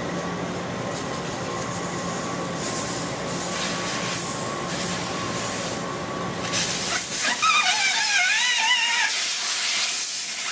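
Air hissing steadily out of a skid-steer tire's open valve stem with the valve core removed: the tire deflating from about 50 psi. About seven seconds in the hiss gets louder, and a short wavering whistle sounds over it for a second or two.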